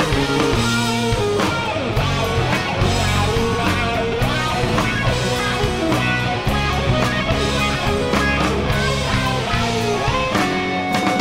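Band music led by guitar, with a steady bass line and drum beat.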